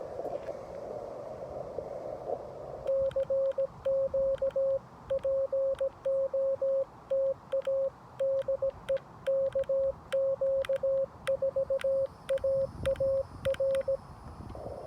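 Xiegu G90 HF radio's CW sidetone: a single steady tone keyed on and off in Morse code at about 17 words per minute, sent with a paddle whose clicks go with the dits and dahs. For the first three seconds there is only the receiver's hiss through the narrow CW filter; it drops out while the operator sends and comes back near the end.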